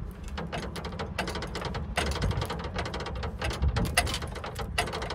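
Hand wire crimper squeezing a blue insulated fork terminal onto a detector loop cable wire, giving a run of small clicks and handling knocks over a low rumble.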